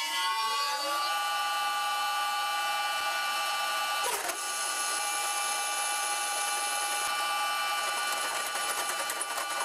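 Vintage Karger bench lathe running, its motor and drive whine gliding up and settling in the first second after start-up into a steady hum of several tones.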